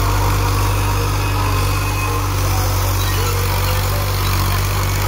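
Tractor's diesel engine running steadily, pulling a tillage implement through the soil.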